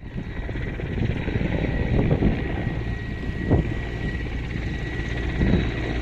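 Firefighting helicopter running overhead: a steady low rumble with a thin steady high tone above it.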